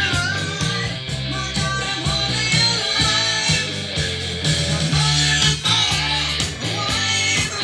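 A rock song with guitar playing from a CD through Panasonic SB-550 stereo speakers.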